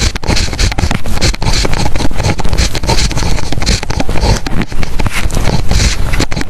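Pen writing on paper, close-up: quick, irregular scratching strokes.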